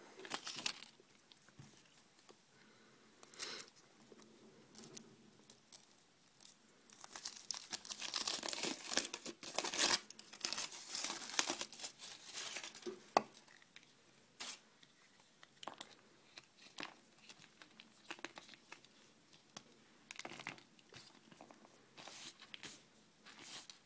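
Thin foil wrapper being torn and peeled off a chocolate surprise egg, crinkling densely for several seconds about a third of the way in, with scattered sharp crinkles and taps of handling before and after.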